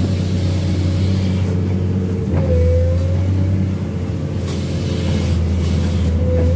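Komatsu PC210 excavator's diesel engine and hydraulics running steadily, a deep hum under a whine that briefly sags in pitch and grows louder about two and a half seconds in.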